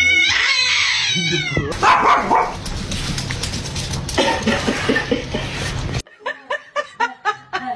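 A cat crying loudly in a rapid run of short meows and yowls, then a noisier stretch. Near the end comes a quick run of short, evenly spaced calls.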